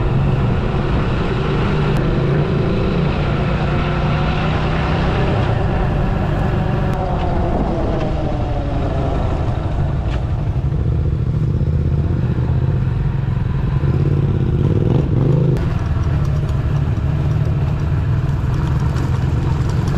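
Motorcycle engine running steadily while riding, its pitch wavering up and down for a few seconds in the first half.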